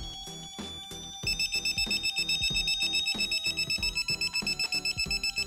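Fast, loud electronic beeping from a digital torque wrench's buzzer, the alert it gives as the set torque is reached, starting about a second in, over background music.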